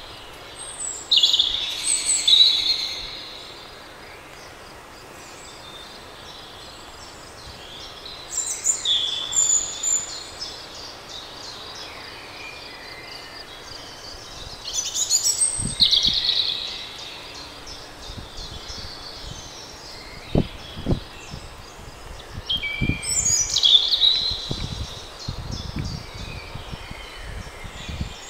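A songbird singing the same short, high phrase four times, about seven seconds apart, over a steady background hiss. A few low thumps come in the second half.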